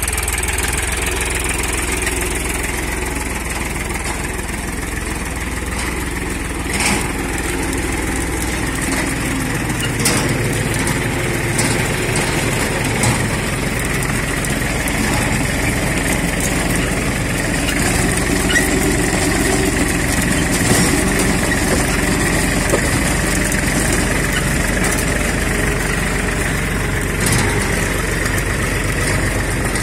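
Tractor engine running steadily while pulling a seed planter during maize sowing, with a few short sharp clicks.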